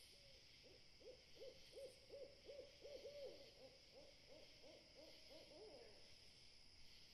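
A rapid run of about fifteen short hoots, roughly three a second, each note rising and falling in pitch. The hoots are loudest in the middle and stop about six seconds in.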